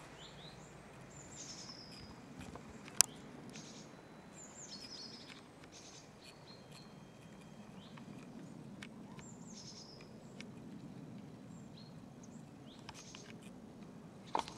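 Small birds giving short chirps that sweep down in pitch, several times over, above a faint steady low rumble. A single sharp click about three seconds in and a softer knock near the end.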